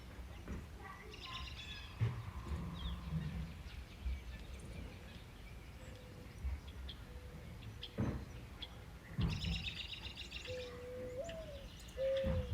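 Small songbirds chirping and twittering in short bursts, over a steady low background noise.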